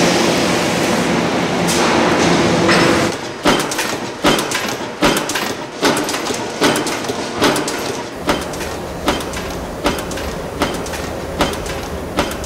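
Steady industrial machinery noise with a low hum, then, from about three seconds in, a mechanical power press stamping in an even rhythm, one sharp thump a little more often than once a second.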